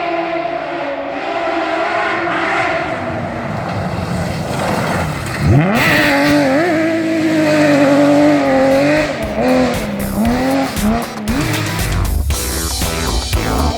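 Rally car engine at high revs as the car approaches, its pitch climbing. About five and a half seconds in the revs jump sharply and then swing up and down through gear changes and lifts. Music comes in near the end.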